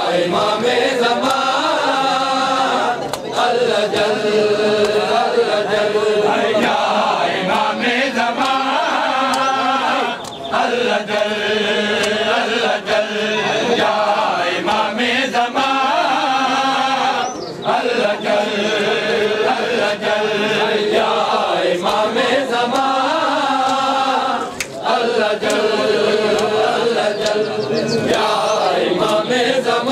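A crowd of men chanting in unison during Shia matam, in repeated phrases of about seven seconds with a short break between them, over a patter of hands slapping on bare chests.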